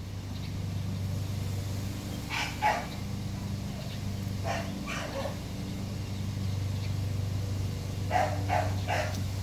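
Dogs barking in short bursts: once about two seconds in, twice around the middle and three quick barks near the end. Under them runs a steady low motor hum.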